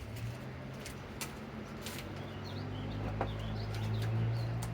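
A steady low hum that swells to its loudest about four seconds in, with a few faint bird chirps in the second half.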